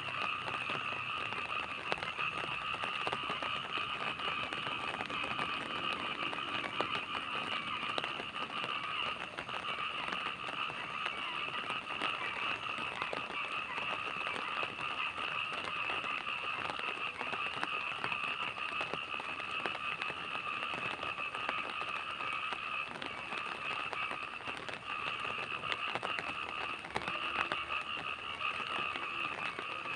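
Steady night rain, a dense crackle of drops, over a continuous high-pitched chorus of calling frogs.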